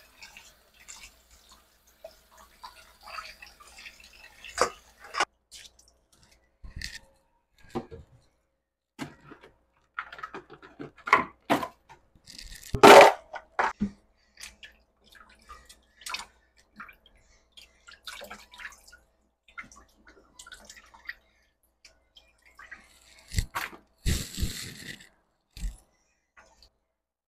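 Water splashing and dripping in a stainless-steel sink as gloved hands wash and scrub raw crabs, with scattered small knocks and clicks. There is one louder burst about halfway through, and a short hiss with a few low thumps near the end.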